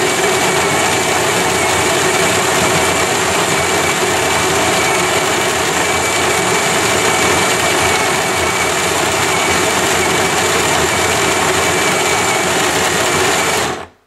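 Capresso Infinity conical burr grinder's 100-watt motor grinding coffee beans on its extra-coarse setting: a steady grinding whir with a thin whine, stopping suddenly near the end as the timer runs out.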